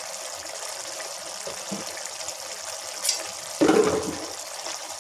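Boneless mutton curry simmering in an iron kadai, a steady bubbling hiss of the cooking liquid, with a short knock about three and a half seconds in.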